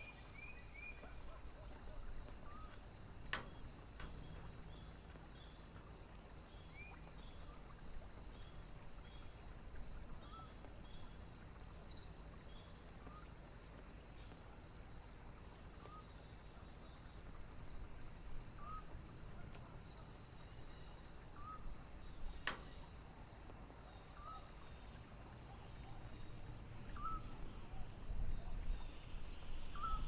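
Wind blowing steadily, gusting louder near the end, under a cricket chirping in an even, steady rhythm. A short rising chirp from another animal repeats every two to three seconds, and two sharp clicks sound, a few seconds in and again past the middle.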